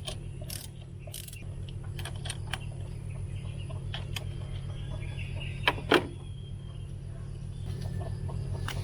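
Hand tools clicking and tapping on engine parts as the idle air control valve and throttle body are taken apart, with two sharper knocks about six seconds in, over a steady low hum.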